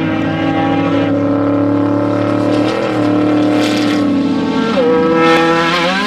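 Off-road desert race vehicle's engine running hard at a steady pitch, dropping in pitch about five seconds in and then rising again near the end.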